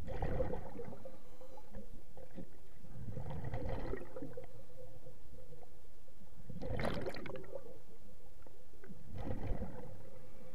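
Scuba diver's regulator exhaling underwater: four bubbling bursts of exhaled air, each about a second long and about three seconds apart, with a steady tone underneath.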